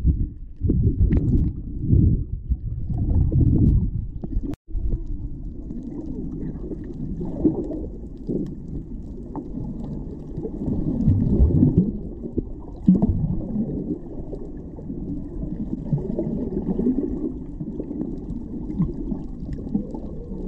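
Muffled underwater sound picked up by a camera beneath the sea surface: a low rumble of water moving around the camera, pulsing at first, then steadier with occasional swells. It cuts out abruptly for an instant about four and a half seconds in.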